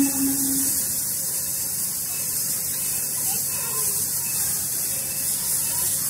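Steam locomotive whistle dying away within the first second, followed by a steady high hiss.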